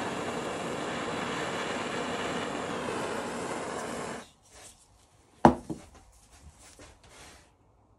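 Heat gun running, a steady blowing rush with a faint fan whine, switched off about four seconds in. About a second later comes one sharp knock, the loudest moment, followed by a few light handling clicks.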